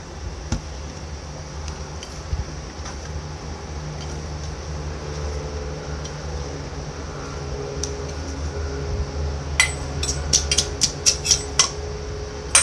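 Wooden pestle pounding chillies and garlic in a clay mortar: sharp, regular knocks about three a second, starting about three seconds before the end. Before that only a steady low hum.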